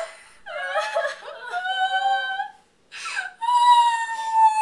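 Young women laughing helplessly behind their hands: two long, high-pitched, whining laughs of about two seconds each, with a short break between.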